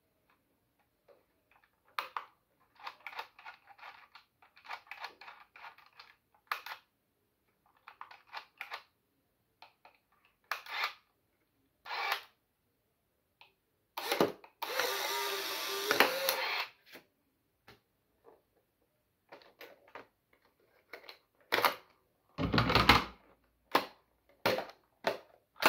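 Polaroid SLR 680 instant camera: mechanical clicks as it is handled and the shutter is pressed, then the film-ejection motor whirring for about two seconds as the print is pushed out. More clicks and a louder clunk follow near the end as the camera is handled.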